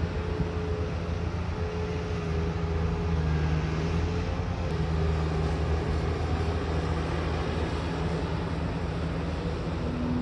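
Diesel engine of heavy construction machinery running steadily, its note swelling a little for a few seconds in the middle, with a fainter higher tone wavering above it.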